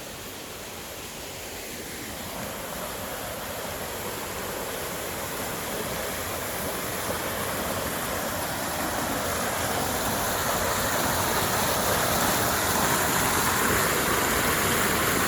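Water rushing along a man-made canal: a steady rushing noise that grows gradually louder throughout.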